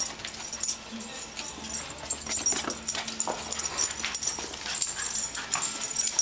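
Two small dogs playing chase and wrestling, giving short dog vocal sounds amid many quick clicks and knocks.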